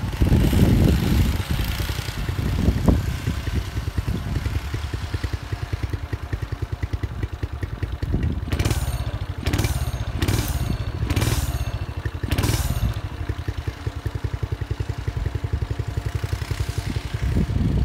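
A 1971 El Burro sand and snow minibike's small engine running with an even pulsing beat. It is heard at a distance, with several short louder bursts in the middle, and grows louder near the end as the bike comes close.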